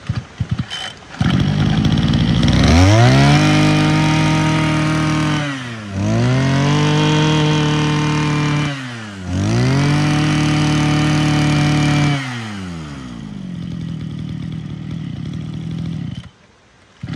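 Mitsubishi TL261 26cc two-stroke brush cutter engine catching about a second in on a light pull of its assisted recoil starter, a sign it starts easily. It is then revved up and held high three times, dropping back between, and settles to an idle.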